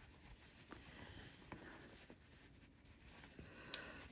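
Near silence with faint rubbing and a few small ticks of a sewn cotton kippah being pressed and smoothed between the fingers.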